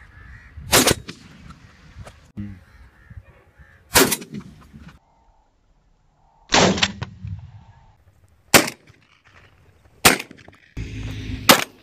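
Six sharp gunshots from a hunting gun, fired one every one and a half to three seconds.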